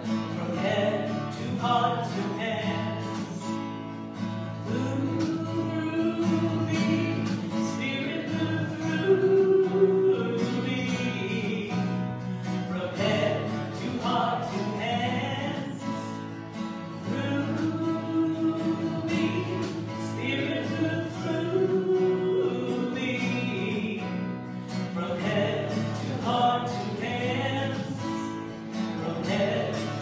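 Live worship song: a woman singing with acoustic guitar accompaniment.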